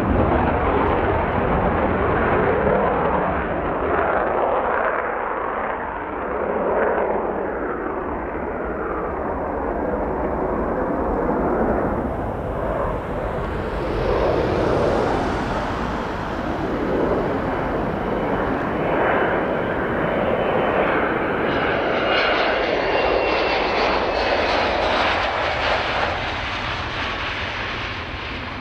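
Panavia Tornado's twin RB199 turbofan engines: loud, continuous jet noise that swells and eases every few seconds. A faint high whine joins in a little over twenty seconds in, sliding slightly down in pitch.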